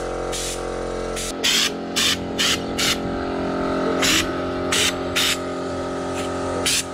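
Compressed-air undercoating spray gun, with a can of Bully Liner rubber coating screwed on, hissing in about eight short bursts as the trigger is pulled and released. A running air compressor keeps up a steady hum underneath.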